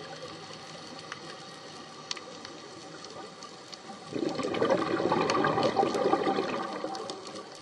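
Underwater ambience, a steady faint hiss with scattered small clicks, then about four seconds in a loud burst of bubbling lasting about three seconds: a scuba diver's exhaled breath bubbling out of the regulator.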